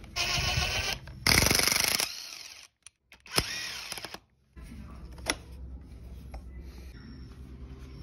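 Power drill-driver with a hex bit spinning out the hex-socket bolts of a pressure washer's pump head, in short bursts of motor whine with a sharp click between them. After about four and a half seconds only a low steady hum remains.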